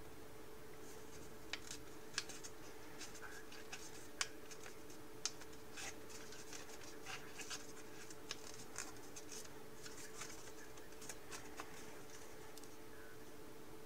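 Origami paper being folded and shaped by hand: irregular small crinkles and crackles of the paper. A steady low hum runs underneath.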